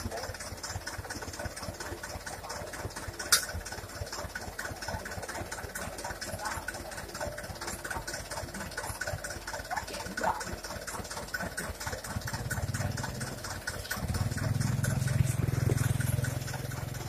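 Mitsubishi Canter dump truck's diesel engine idling steadily, with a sharp knock about three seconds in. Near the end the engine speeds up and runs louder for a couple of seconds.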